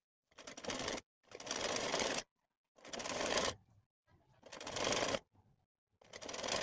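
Sewing machine stitching a sleeve seam onto a kameez in short runs: five spurts of about a second each, with brief stops between them.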